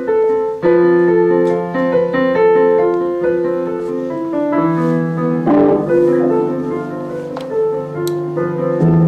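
Piano playing a slow, sad piece: a held low note under a repeating pattern of higher notes, the harmony changing about halfway through.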